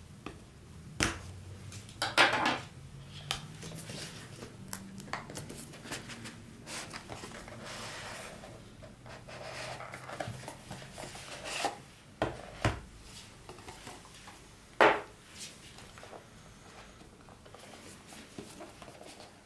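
Handling of a microphone kit's product box: scattered taps and clicks, a few sharper knocks, and rubbing and scraping as the box is turned over and worked at.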